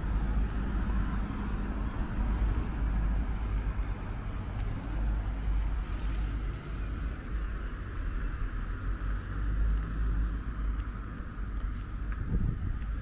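Cars driving past on a road over a steady low rumble.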